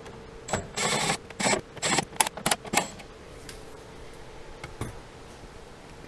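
Cordless drill-driver running in several short bursts, driving the screws that hold a speaker to its bracket, then stopping about three seconds in, with a few faint clicks after.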